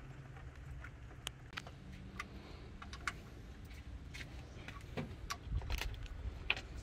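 Scattered small clicks and rattles of hands working plastic ignition coils and their wiring connectors back into place on a car engine, a few sharper clicks in the second half, over a low steady hum.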